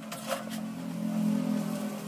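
A metal spatula clinks and scrapes against a wok as noodles are stir-fried, over a low steady droning hum that grows louder about a second in.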